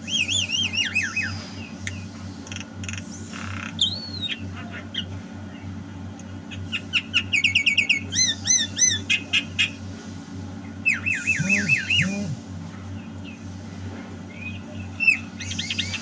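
Javan myna singing in bursts of quick whistled notes that slide up and down, with rapid trilled runs, over a steady low hum.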